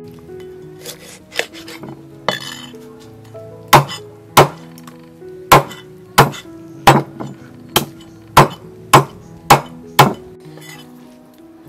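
Meat cleaver chopping chicken into pieces on a wooden chopping block: a few light taps, then about ten sharp chops in quick succession, over soft background music.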